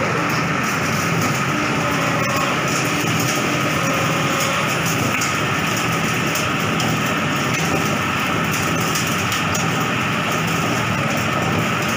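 Coconut shell and husk grinder machine running steadily: a dense mechanical whir with a steady hum, and scattered faint ticks on top.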